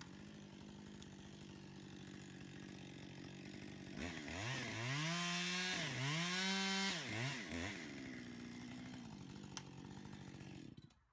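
Chainsaw engine idling, revved up and down several times in quick succession about four seconds in, then dropping back to idle. It cuts off near the end.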